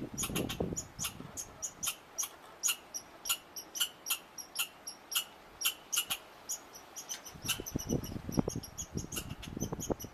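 A small animal giving short, high squeaks over and over, about two or three a second. From about seven seconds in, rustling or scratching runs under the squeaks.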